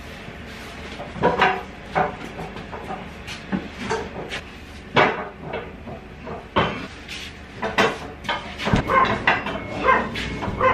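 Heavy truck tires mounted on rims being rolled over a concrete floor and stood against a wooden wall, with scattered knocks and thuds as they bump and settle; the heaviest thump comes about nine seconds in.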